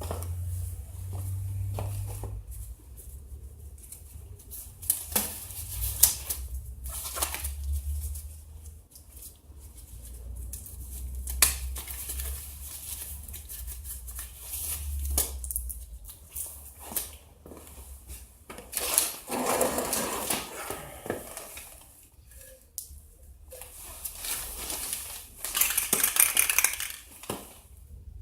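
Irregular clinks and knocks of hard objects being handled while setting up to paint plastic chair parts. Twice, for a couple of seconds, there is a longer hissing or rustling noise.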